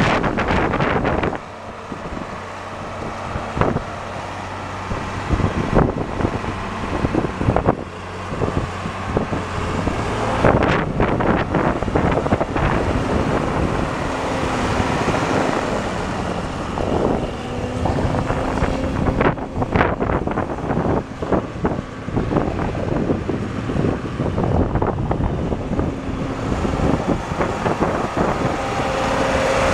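John Deere 4640 tractor's six-cylinder diesel engine running as the tractor drives around, its note rising and falling a little, with wind buffeting the microphone.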